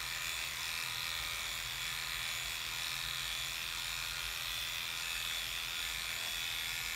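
Electric pet grooming clippers running steadily as they shear a Havanese's body coat short.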